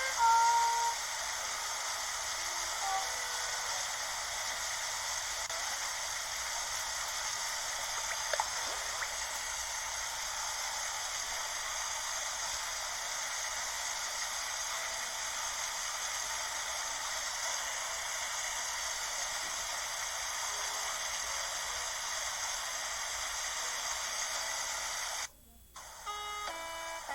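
Steady, even rushing waterfall sound, with a few short high notes in the first few seconds. Near the end it cuts out for about a second and returns with a few brief tones.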